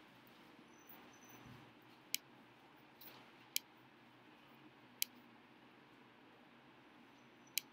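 Four single sharp computer mouse clicks, spread a second or two apart, over a faint steady room hiss.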